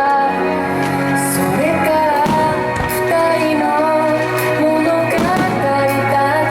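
Pop song playing: a singer's voice over sustained chords.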